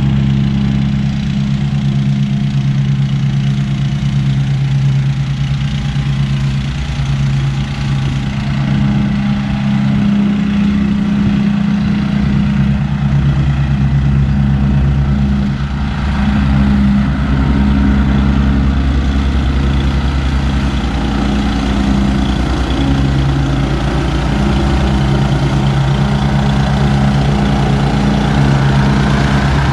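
Lawn mower engine running steadily, a continuous engine hum with only small rises and dips in level.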